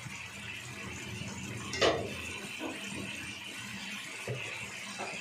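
Masala gravy simmering in a wok with a steady hiss, the hand blender switched off. A sharp metallic knock about two seconds in, with a short ring, and a few fainter knocks later, from the stainless blender head against the wok.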